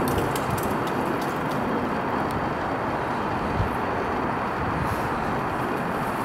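Steady city street traffic noise, a continuous rush of passing vehicles.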